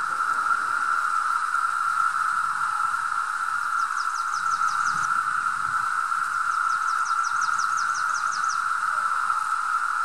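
Chorus of 17-year periodical cicadas (Brood II): a steady, high droning hum from many calling males. Twice a short, fast run of high ticks, about eight a second, sounds over it: once about four seconds in and again for about two seconds past the middle.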